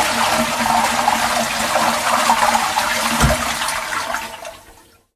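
A toilet flushing: a loud rush of swirling water that drains away and fades out near the end.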